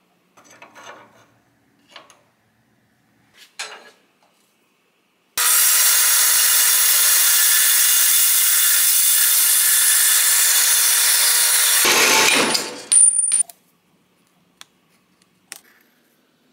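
Horizontal metal-cutting band saw cutting through a chrome steel socket: a loud, steady hissing whine for about six seconds that stops abruptly, followed by a brief rough burst. Before it come a few faint scratches and taps.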